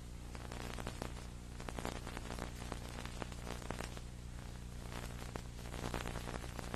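Steady low electrical hum with crackling static, the noise left on an old tape recording where the match audio has dropped out.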